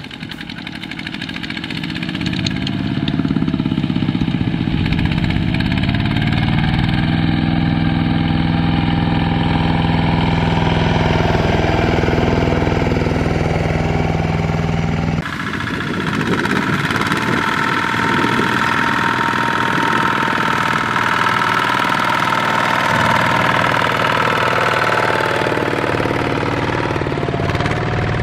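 Two-wheel walking tractor's single-cylinder diesel engine running under load while pulling a loaded trailer, its pitch rising and falling. The sound fades in over the first few seconds, and about halfway through it cuts abruptly to a second, steadier engine note.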